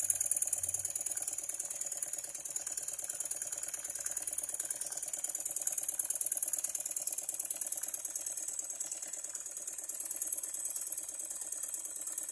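Jensen #20G toy live steam engine running steadily under load from its belt-driven generator: a rapid, even clatter over a steady high hiss.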